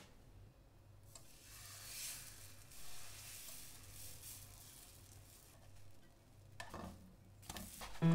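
Crepe batter sizzling faintly as it is ladled into a hot nonstick frying pan, with a few short scrapes of a spatula in the pan near the end.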